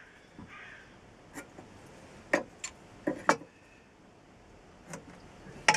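A handful of light, sharp clicks and taps at irregular intervals: small hand tools such as a pencil and a steel rule being handled and set down on a timber wagon frame.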